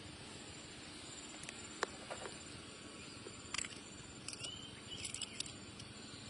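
Insects shrilling steadily at a high pitch. A few sharp clicks and short chirps break through, the loudest just under two seconds in.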